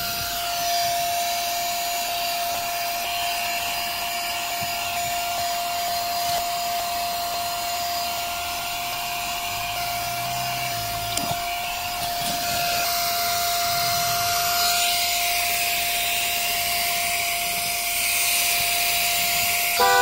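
Brigii M1 handheld mini vacuum cleaner running steadily, its small motor giving a constant whine over a rush of air as it sucks dirt off car carpet and a rubber floor mat. The air rush changes and brightens about two-thirds of the way through as the nozzle moves.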